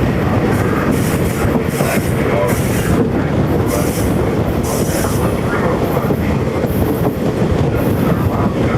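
Amtrak passenger train running, heard from an open vestibule: a steady loud rumble of wheels on rail mixed with rushing air, with short bursts of high hiss or squeal coming and going every second or so.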